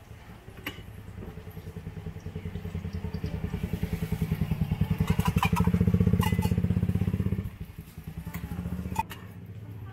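A small engine running close by with a fast, even pulsing beat. It grows louder to a peak about six seconds in, cuts off sharply a moment later, and then runs again more quietly for about a second. A single sharp knock comes about nine seconds in.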